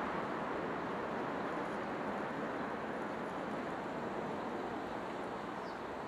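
Steady rush of shallow river water running over stones, with a faint short high note near the end.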